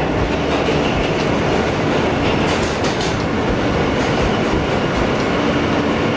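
Train running: a steady, loud noise from the rail car and its wheels on the track.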